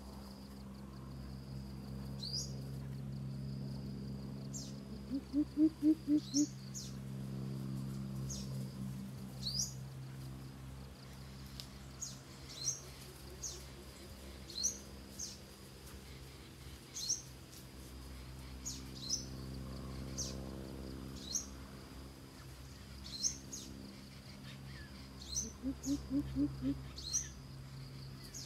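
Coucal giving its deep hooting call: two quick runs of about five or six low notes, about five seconds in and again near the end. Short sharp chirps of other birds recur every second or so over a steady high insect whine and a low hum.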